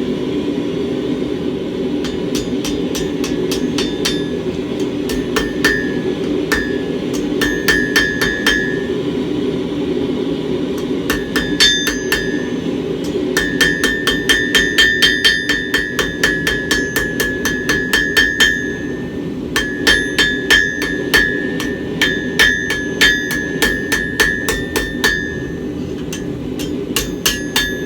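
Hand hammer striking a hot steel bar on an anvil, rounding the bar's tip. The blows come in runs, quickest at about three a second, and the anvil rings a high note after the strikes. A steady low hum runs underneath.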